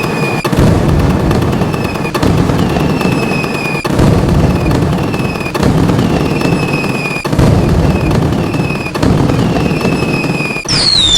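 Loud, heavily distorted cartoon thunderstorm sound effect: crashing, rumbling thunder that surges every second or two, each surge topped by a short falling tone. Near the end, higher, louder falling tones come in.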